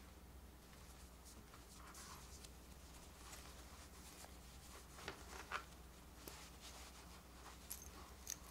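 Faint rustling and scratching of fingers handling a plush toy's soft body and its fleece coat, coming in a few short spells, with a couple of light clicks near the end.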